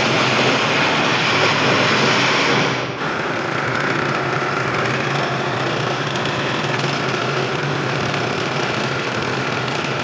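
Electric floor grinding machine running its grinding head over a wet cement floor: a steady, loud mechanical grinding noise. The level dips briefly about three seconds in, then carries on unchanged.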